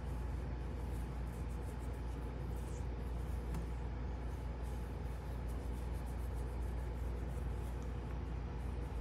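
Domestic tabby cat purring steadily while being scratched under the chin, a low pulsing rumble, with soft rustling of fingers working through its fur.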